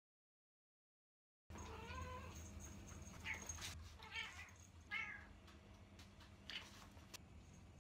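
Orange tabby house cat meowing in short calls, about five of them, starting after a second and a half of dead silence.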